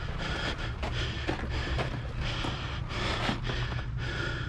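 A player's breathing close to the microphone, swelling and fading every half second to a second over a steady low hum, with a few faint knocks of movement.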